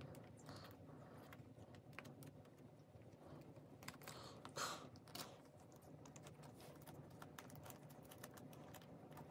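Faint clicks and rustles of plastic photocard binder sleeves being handled and turned, with a slightly louder crinkle about four and a half seconds in.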